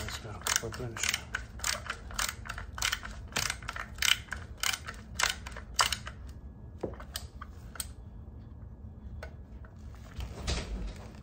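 Ratcheting screwdriver clicking in a steady rhythm, about three clicks a second, as it drives a small screw into an LED headlight's mounting frame. The clicking stops about six seconds in, leaving a few scattered clicks and knocks.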